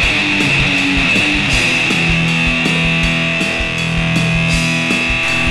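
Hard rock music: electric guitar holding sustained notes over a steady drum beat.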